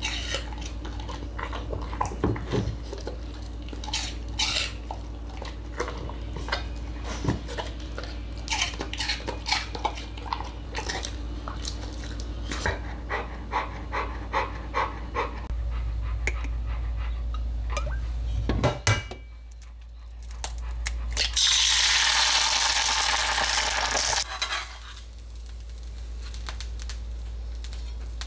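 Golden retriever eating apple pieces from a ceramic bowl: many quick crunching chews and the bowl clicking and knocking as it is licked and nudged. About twenty seconds in, a loud hiss lasts about three seconds.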